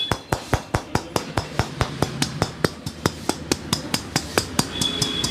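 Rapid, even slaps of a barber's hands tapping during a head and body massage, about five a second.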